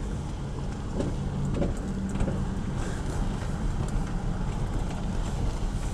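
Car driving along a wet lane, heard from inside the cabin: a steady low engine hum with tyre and road noise.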